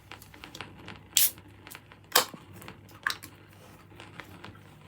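Surface crackle and scattered clicks of a vinyl record playing in its lead-in groove before the music, with three louder pops and a faint low hum underneath.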